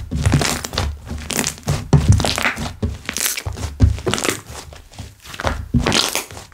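Hands squishing, pressing and folding slime: an irregular run of wet squelches and air-bubble pops, one or two a second.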